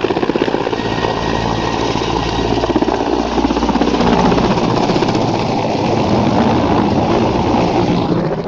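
Mil Mi-8 helicopter passing low and close: its main rotor is chopping rapidly over the engine noise, loud and steady.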